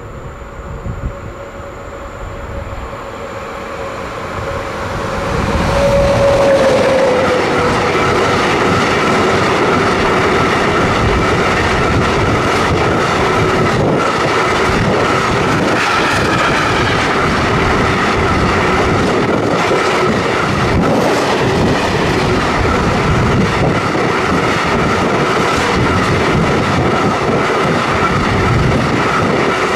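An electric freight locomotive approaches and passes, its whine dropping in pitch about six seconds in. A long train of empty container flat wagons then rolls by with steady wheel noise and a clatter of wheels on the rails.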